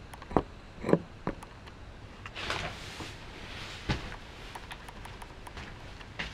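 Handling noises: a few sharp knocks in the first second and a half, a short rustle about two and a half seconds in, and single knocks near four seconds and at the end.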